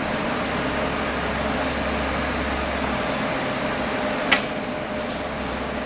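Steady hum and whir of electric trains at a station platform, one standing and one arriving, with a low rumble that drops away about three seconds in. A single sharp click a little past four seconds in.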